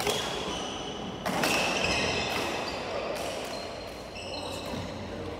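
Badminton play on a wooden hall floor: two sharp racket hits on a shuttlecock about a second and a half apart, echoing in the large hall, with high squeaks of shoes on the court.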